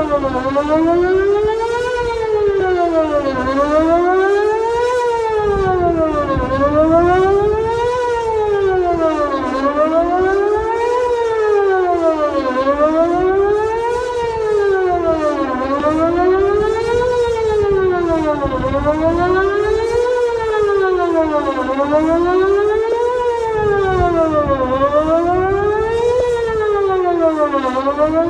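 Whelen WPS 2909 electronic outdoor warning siren sounding its loud test tone, the pitch sweeping smoothly up and down about once every three seconds.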